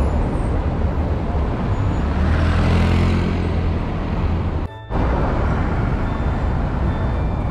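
Busy city road traffic: cars driving past with a steady rumble of engines and tyres, growing louder about two to three seconds in as a vehicle passes close. The sound drops out briefly about two-thirds of the way through.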